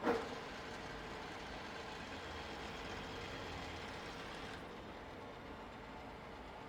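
Huron MU6 milling machine running: a sharp clunk right at the start, then a steady mechanical hum with a faint held tone. About four and a half seconds in, the higher part of the sound drops away and a quieter hum carries on.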